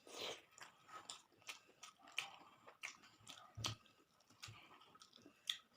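Close-up chewing of a mouthful of rice with young-jackfruit curry: soft, wet mouth clicks and lip smacks, irregular, roughly three a second, with one fuller, lower smack partway through.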